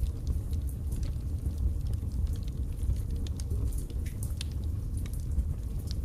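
Firewood burning in a fireplace: many small, irregular crackles and pops over a low, steady rumble.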